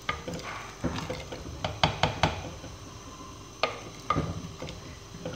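Wooden ladle stirring thick cooking dal in a clay pot, with irregular knocks and scrapes of the ladle against the pot's sides and bottom.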